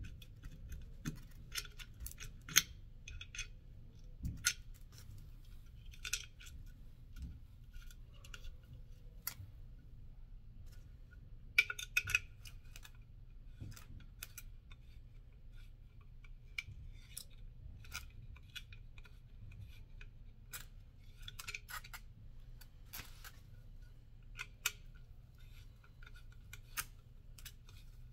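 Irregular small clicks and clinks of an Allen key and bicycle seatpost parts being handled and fitted by hand, over a steady low hum.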